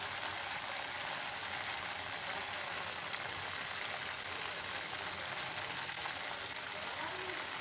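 Hot cooking oil in a pan sizzling and bubbling steadily after deep-frying, with faint crackles.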